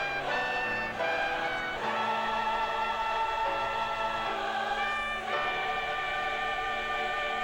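Choral music: a choir singing long, held chords that change every second or few seconds.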